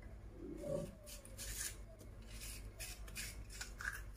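A vegetable corer scraping out the inside of a courgette, a run of short rasping strokes from about a second in.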